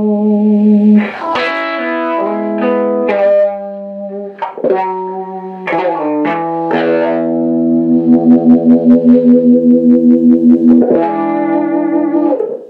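PRS electric guitar played through a vintage DeArmond 1802 Weeper wah pedal and a small amp: picked notes and chords, then a held chord that pulses about five times a second for a few seconds before a new chord is struck near the end.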